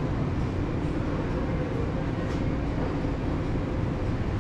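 Steady low rumble and hiss of supermarket background noise, with a faint steady hum.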